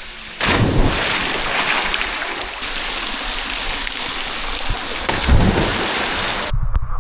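Waterfall pouring, a steady loud rush of falling water that cuts off suddenly near the end.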